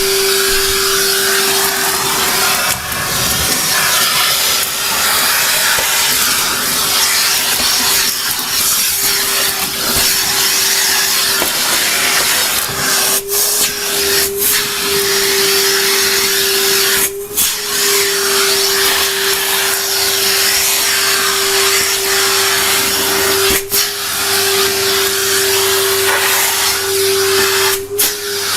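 Henry canister vacuum cleaner running, a steady motor whine over rushing air as it sucks up fine dust, with a few brief dips in the sound.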